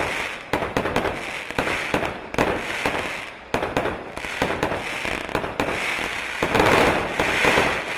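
A consumer aerial finale set of firework cakes firing: a dense string of sharp shots and bursting breaks, with waves of crackle coming about once a second.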